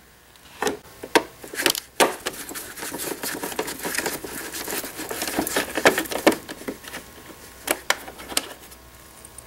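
A screwdriver turning screws out of the metal side panel of a Jura Impressa S9 espresso machine, with the screws being handled: a run of small irregular clicks and scrapes of metal on metal.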